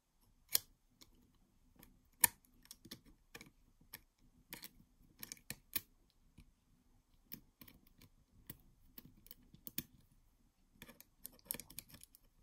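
Screwdriver turning out the screws of the button panel on a Brother KH840 knitting machine carriage's metal plate: scattered, irregular light clicks and metallic ticks, two louder ones about half a second and two seconds in, and a quick flurry of clicks near the end.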